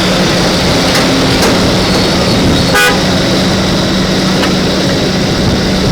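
Excavator engine running steadily with a low hum, with one short horn toot about three seconds in.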